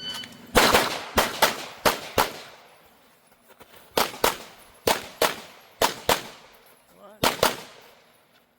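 Shot timer beep, then a Grayguns-tuned Sig P320 pistol firing fast pairs of shots in three strings with short pauses between: a competition stage run under the clock.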